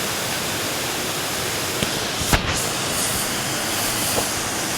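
Steady rushing noise of the Düden waterfall pouring down close by, with a short knock a little past two seconds in.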